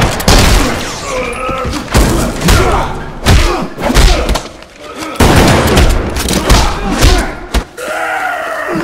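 Hand-to-hand fight sound effects: heavy punch and body impacts land about once a second, with men grunting and groaning in strain between them.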